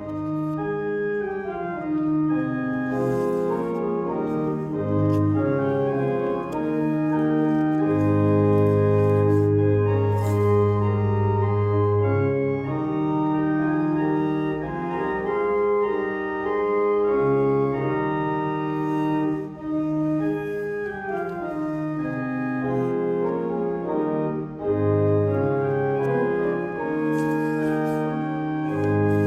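Church organ playing slow, sustained chords over long low bass notes.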